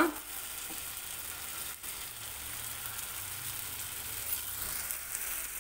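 Masala-coated boiled egg halves sizzling as they fry in hot oil in a pan: a steady frying hiss.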